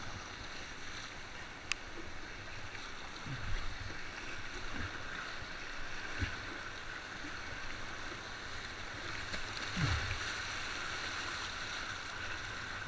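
Whitewater rapid rushing past a kayak as it is paddled downstream, with a sharp click about two seconds in and a few dull low thumps, the loudest about ten seconds in.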